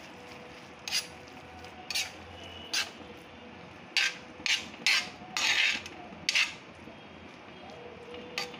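A steel spatula clanking and scraping on a flat iron griddle as thick pav bhaji gravy is mashed and stirred: about nine irregular strikes, with one longer scrape around the middle.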